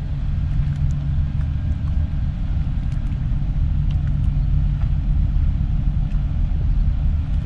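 Harbour tugboat's diesel engine: a low, steady rumble as the tug motors past.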